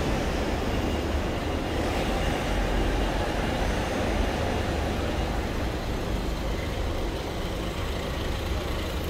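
Steady road traffic noise from a slow queue of cars and vans with engines running, dominated by a low rumble.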